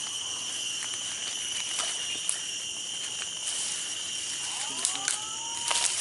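A steady, high-pitched drone of insects, with footsteps and rustling through undergrowth as scattered clicks, heaviest near the end. A short rising whistle-like call comes about five seconds in.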